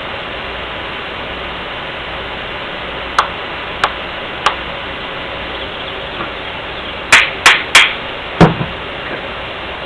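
Sharp metallic knocks of a hand tool striking the CAV injection pump housing: three light taps, then four louder knocks in quick succession about three seconds later, over a steady hiss.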